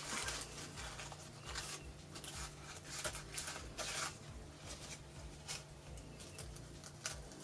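Light rustling and handling of artificial flowers being moved and set in place: scattered soft rustles, scrapes and small taps over a faint steady hum.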